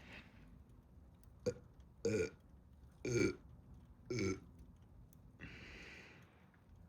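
A young woman burping three times, each burp short and about a second apart, from the gas of a carbonated sparkling water she has just chugged. A sharp click comes just before the first burp.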